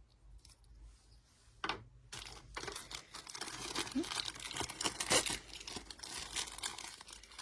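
Packaging crinkling and tearing in irregular bursts as small doll accessories are unwrapped by hand, starting about a second and a half in.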